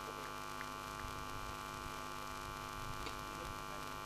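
Steady electrical mains hum made of several constant tones, with a few faint ticks.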